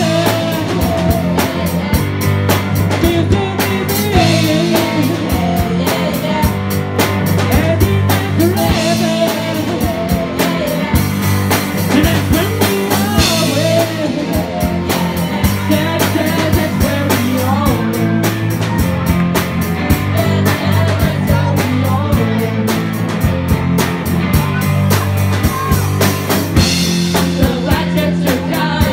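A live rock band playing a song: a drum kit keeping a steady beat and electric guitars, with several voices singing together into microphones.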